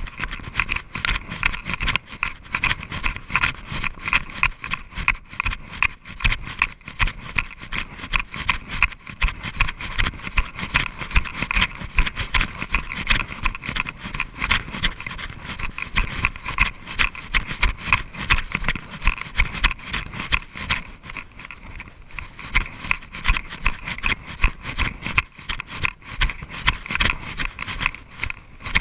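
Running footsteps thudding and crunching on a leaf-strewn dirt trail at about three strides a second, with the chest-worn action camera rattling and jostling in its mount.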